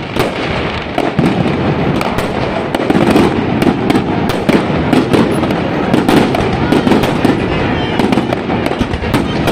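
Aerial fireworks going off: many sharp bangs and crackles in quick succession over a continuous din.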